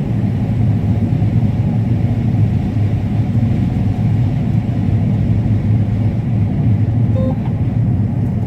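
Combine harvester running steadily while harvesting corn: a constant low engine-and-machinery drone with no change in pace.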